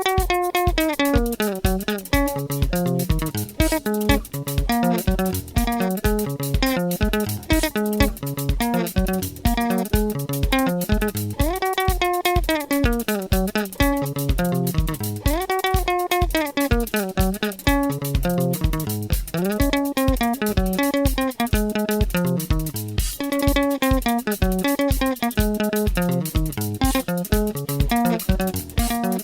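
Sungura music: plucked guitar lines over a bass guitar, with a fast steady beat. Every few seconds a note slides up and then back down.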